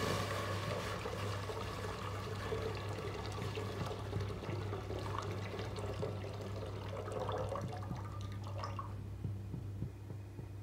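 Warm water poured from a kettle in a steady stream into an empty metal cooking pot, splashing against the metal. The stream tapers off and stops about nine seconds in.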